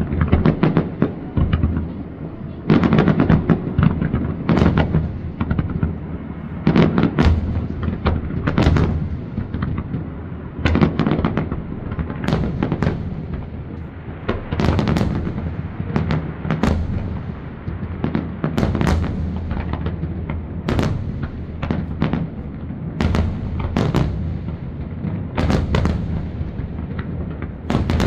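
Aerial fireworks shells bursting in a continuous barrage: clusters of sharp bangs every second or two, over steady low booming from the bursts.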